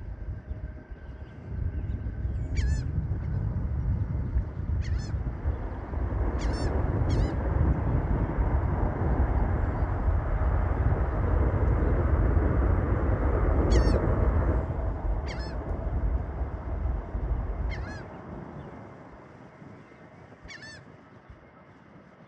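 Boeing 787-8 Dreamliner jet engines rumbling as the airliner passes, the sound building for several seconds and fading away about eighteen seconds in. Birds give short honking calls about eight times over the top.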